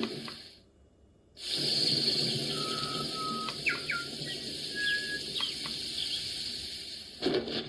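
Birds chirping and whistling over the steady rush of running water, like a nature-sound track. It cuts out abruptly for about half a second near the start, then carries on.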